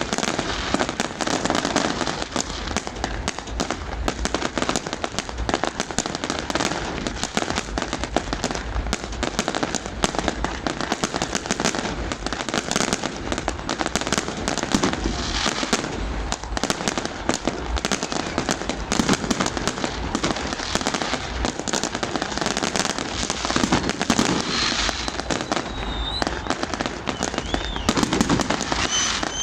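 New Year fireworks display: a dense, unbroken barrage of bangs, pops and crackles from many shells and firecrackers going off at once. A few brief high whistles glide through near the end.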